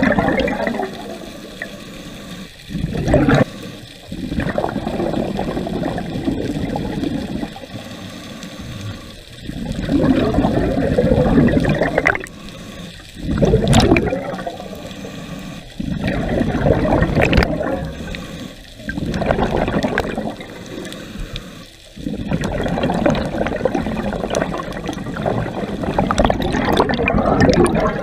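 Scuba diver breathing through a regulator underwater, in cycles every few seconds: a short hiss on each breath in and a longer rush of exhaled bubbles on each breath out.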